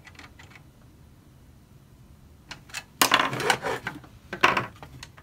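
A few faint clicks of a screwdriver at a screw in a plastic blaster shell, then, about three seconds in, a louder clatter of hard plastic and metal hand tools handled on a wooden table, with a sharp knock a little later.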